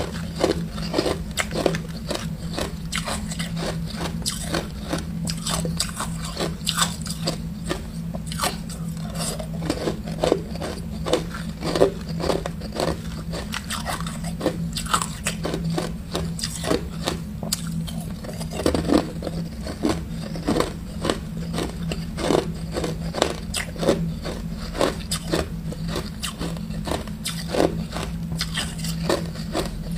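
Ice cubes being bitten and chewed: repeated sharp crunches, two or three a second, with a steady low hum underneath.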